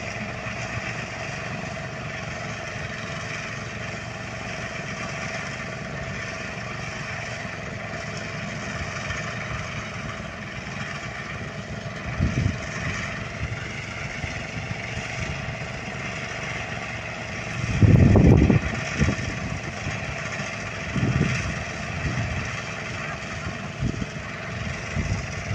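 Portable rice thresher's small engine running steadily, with a few short low rumbles breaking in over the second half, the loudest about a second long.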